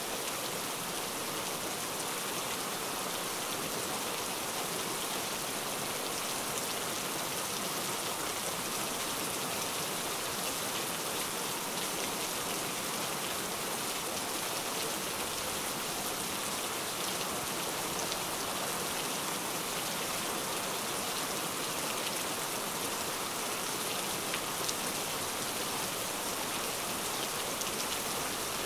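Steady rain: an even hiss of falling water, flecked with small drop ticks, that does not change.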